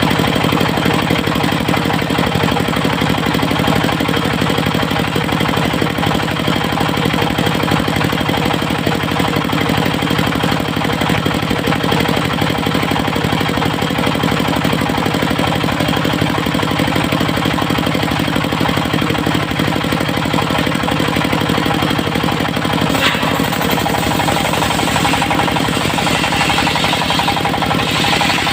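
Diesel engine of a portable circular-saw mill running steadily with a fast, even knocking beat. A higher hiss joins near the end.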